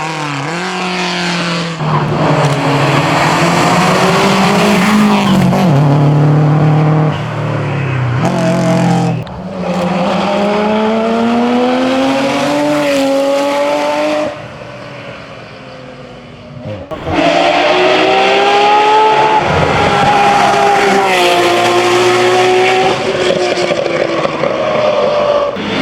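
Hillclimb racing car engines at full throttle, the revs climbing and then dropping sharply at each gear change. The sound fades for a few seconds past the middle, then comes back loud with more revving through the gears.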